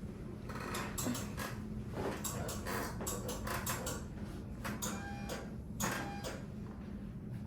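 Hands pressing and stroking over the neck and shoulders during a manual-therapy massage: irregular rustling and soft friction of skin and clothing, over a low steady hum, with two brief faint squeaks about five and six seconds in.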